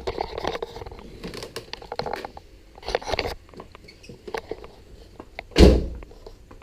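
Irregular clicks, rattles and knocks of handling, with one heavy low thump about five and a half seconds in. No engine is running or cranking.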